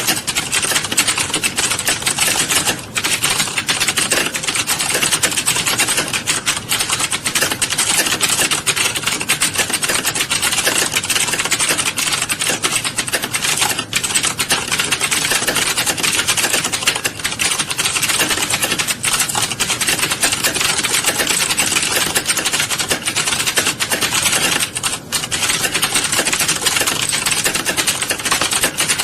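Fast, continuous typing on keys: a dense stream of key clicks with brief pauses about three seconds in and near the end.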